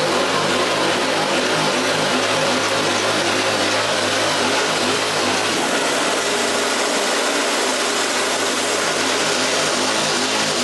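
Bale bedding chopper running steadily, its small Honda gas engine spinning the knife shaft and blowing out chopped hay, with a steady rush of noise over the even pulse of the engine.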